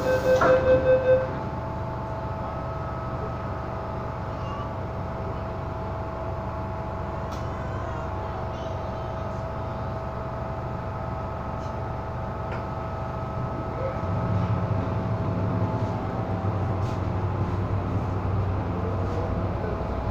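Inside an MTR M-Train carriage: the pulsing door-closing warning tone ends about a second in as the doors shut. The standing train then gives a steady electrical whine over a low hum. About 14 seconds in, a low rumble swells as the train's traction motors start it moving.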